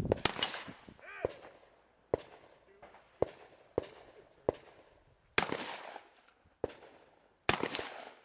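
Shotgun fire: about ten single shots at uneven spacing, roughly one a second. Three of them, near the start, about five and a half seconds in and about seven and a half seconds in, are loud with a long echoing tail, and the rest are sharper and fainter.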